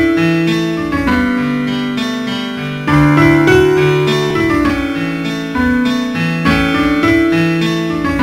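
Slow soundtrack music on a piano-like keyboard: held chords under a simple melody. Each new phrase is struck about every two and a half to three seconds and fades away slowly.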